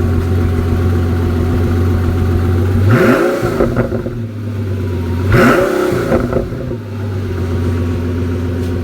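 Car engine idling with a steady low hum, blipped twice, at about three seconds and again about two and a half seconds later: each rev rises sharply and drops back to idle.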